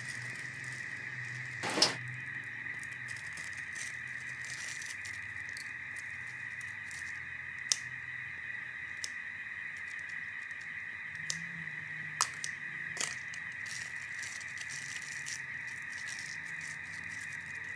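Quiet kitchen room tone with a steady hiss, broken by a few sharp clicks and light crinkling from hands shaping a rice ball and wrapping it in a sheet of nori; the loudest click comes about two seconds in.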